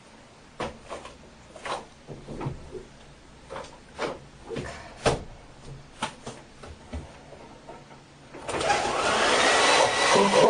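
A few scattered light knocks and handling sounds, then about eight seconds in a handheld hair dryer switches on and blows steadily and loudly.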